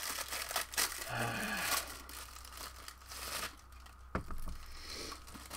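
Crinkling, rustling noise for about three and a half seconds, then a single sharp click about four seconds in.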